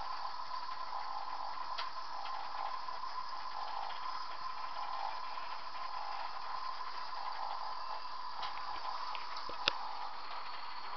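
Model trains running on a model railway layout: a steady mechanical whir with fine rapid ticking, and one sharp click near the end.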